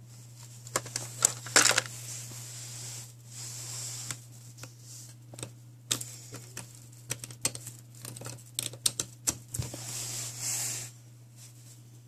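Handling noise from unpacking and plugging in a USB charging cable: many sharp clicks and taps with stretches of plastic rustling from its clear plastic package, over a steady low hum.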